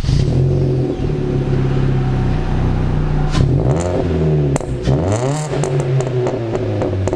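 Chevy Cruze idling through its aftermarket exhaust system, blipped twice, about three and a half and five seconds in, each rev dropping back to a steady idle.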